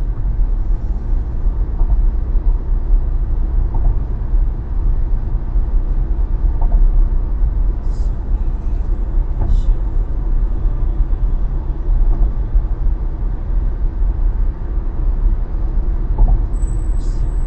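Steady low rumble of a moving car's road and engine noise, with a thin high-pitched tone coming in near the end.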